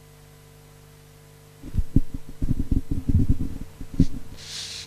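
Steady mains hum through the hall's PA, then, from under two seconds in, a quick run of loud low thumps and knocks: handling noise from a microphone being picked up and moved. A short hiss comes near the end.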